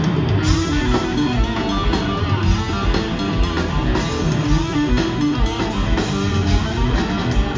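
Rock band playing live, an instrumental passage with no singing: electric guitar over bass guitar and a drum kit.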